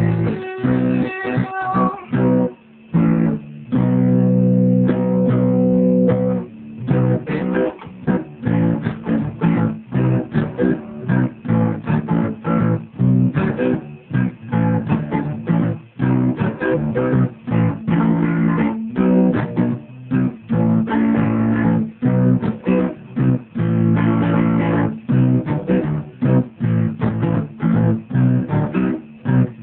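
Electric guitar playing an up-tempo instrumental passage of quick plucked notes and chords, with a few sustained chords a few seconds in.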